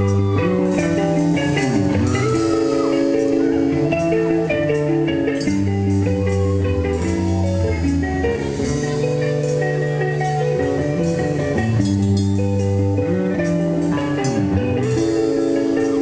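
Live speed/power metal band playing, with electric guitars and bass guitar holding long sustained chords that change every second or two over the band.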